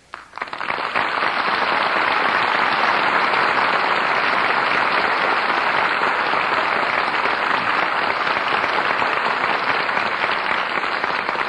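Studio audience applauding: steady, dense clapping that builds up within the first second and dies away at the end, heard on a 1938 radio broadcast recording.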